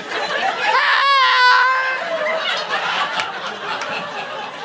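A loud, drawn-out "haaaa" whoop, held for about a second with a wavering pitch, followed by a roomful of people laughing and chattering.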